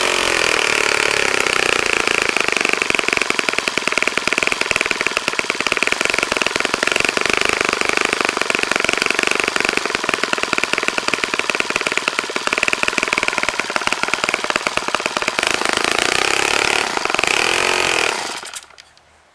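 Saito FA-65 single-cylinder four-stroke glow engine turning a 12x6 propeller at a steady idle of roughly 2,200–2,700 rpm. Near the end the speed picks up briefly, then the engine cuts out and stops.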